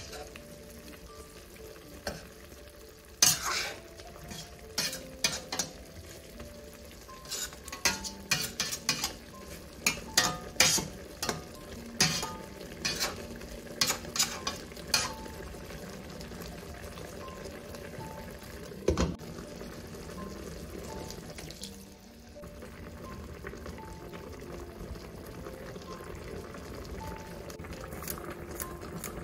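A metal spoon stirring chicken pieces in a stainless steel pot, knocking sharply against the pot's sides in a run of clinks through the first half, with one more knock a few seconds later. Underneath, the braising liquid simmers with a steady sizzle.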